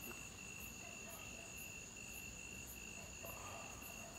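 Night insects, cricket-like, trilling steadily: a continuous high-pitched drone with a faster, evenly pulsing chirp above it.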